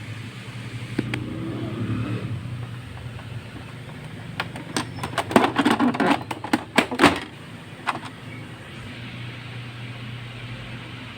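Handling noise from taking the printer apart: a cluster of sharp clicks and knocks about halfway through, and one more click shortly after, over a steady low hum.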